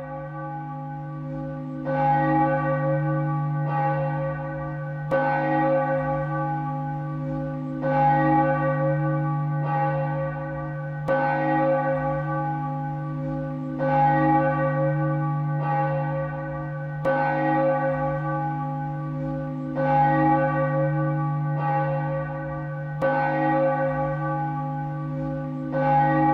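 Church bell tolling steadily, with a strike about every second and a half, louder and softer strokes alternating, over a continuous ringing hum.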